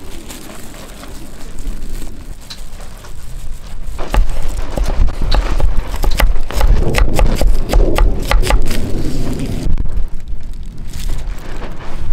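Strong gusty wind buffeting the microphone as a deep rumble that grows much louder about four seconds in. Through the middle comes a run of sharp taps and rattles.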